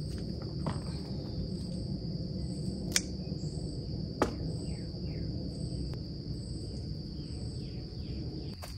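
Crickets or similar insects keep up a steady high drone, with a higher chirp repeating a little under once a second. Two sharp snips come about three and four seconds in, from pruning shears cutting calendula stems.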